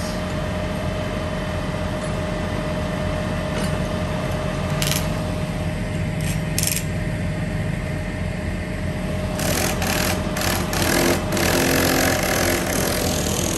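Steady low hum of utility bucket truck engines running at the work site, with a thin steady whine over it. A few sharp clicks, then from about nine seconds in a few seconds of louder clattering work noise.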